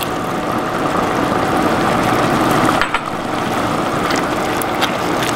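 Bolognese meat sauce sizzling and bubbling hard in a pot on high heat as canned diced tomatoes are tipped in and stirred with a wooden spoon, with a few knocks of the spoon against the pot in the second half.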